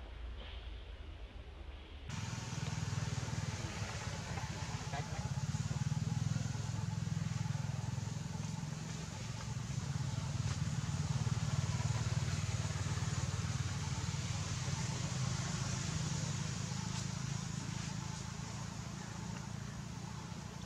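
A steady low motor rumble, like an engine running, that cuts in suddenly about two seconds in and holds with slow swells in loudness.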